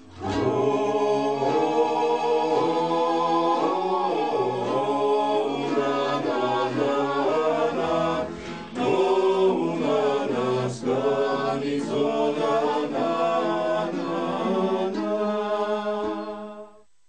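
Music: an unaccompanied choir singing, several voices together. It starts abruptly and fades out near the end.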